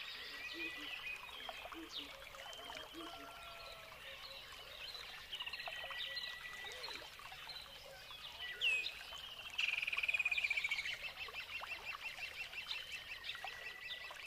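Jungle ambience of many birds calling and chirping, faint and layered. A louder run of rapidly repeated notes starts about two-thirds of the way through and carries on to the end.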